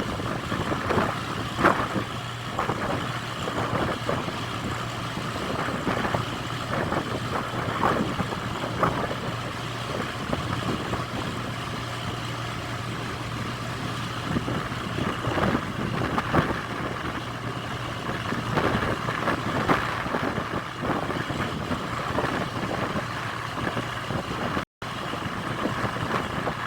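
An engine idling with a steady low hum, under irregular knocks and clatter. The hum stops about fifteen seconds in while the clatter goes on.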